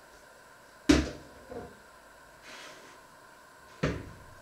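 Sharp knocks of things being handled in a kitchen: a loud bang about a second in with a lighter knock just after it, a short soft rustle, then another bang near the end.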